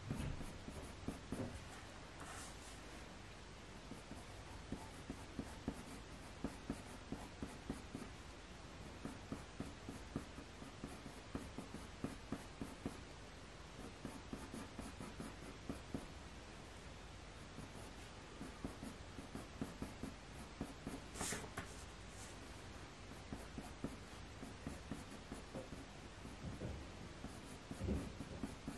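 Coloured pencil scratching across hot-pressed watercolour paper in many quick, short strokes as fur is hatched in. Two brief louder scrapes stand out, and a soft knock comes near the end.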